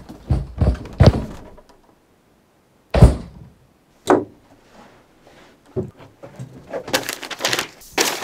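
A few light knocks, then a heavy thump about three seconds in and a sharper knock a second later. Near the end, papers rustle and crumple as they are stuffed into a black bag.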